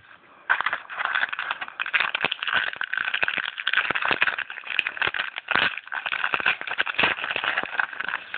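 Foil wrapper of a football trading-card pack being torn open and crinkled: a dense crackling rustle that starts about half a second in and goes on for several seconds.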